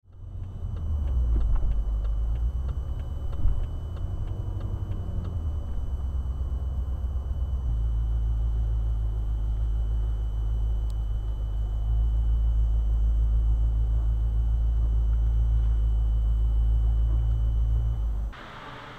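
Low, steady rumble of a slow-moving car's engine and running gear, picked up inside the cabin by a Thinkware X550 dashcam's microphone, with faint regular ticking in the first few seconds. The rumble cuts off suddenly shortly before the end.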